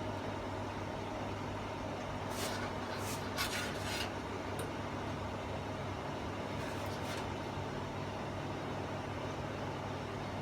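Steady low hum with a cluster of short scratchy clicks about two to four seconds in and a couple more near seven seconds.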